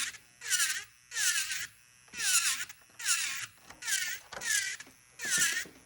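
Rhythmic rasping strokes, about one every 0.8 seconds, each short and hissy, with brief silences between.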